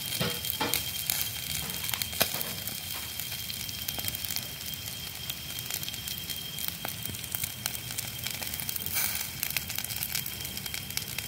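Charcoal fire crackling under skewered catfish as they grill, a steady hiss scattered with small sharp pops, one louder pop about two seconds in.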